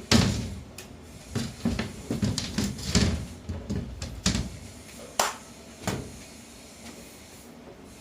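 A series of sharp knocks and clatters, like hard objects being handled and set down, loudest right at the start and dying away after about six seconds.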